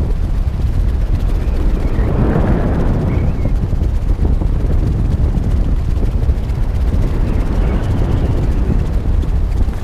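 Wind buffeting a parachutist's camera microphone during descent: a loud, steady low rush that swells and eases.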